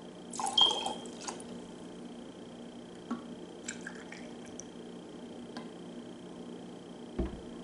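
Rum poured from a shot glass into a stemmed glass: a short splash about half a second in, then a few light drips and small glass taps.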